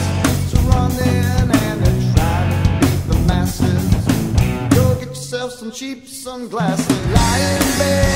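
Classic rock power trio playing a song: electric guitar, bass and drum kit with a singing voice. About five seconds in, the drums and bass drop out for about a second and a half, then the full band crashes back in.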